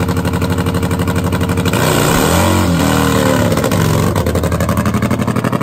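Nitro-burning 134-cubic-inch injected V-twin of a Nitro Funny Bike drag motorcycle, running with rapid, even firing pulses. About two seconds in it revs up and back down as the rear tyre spins in a burnout, then settles back to its steady run.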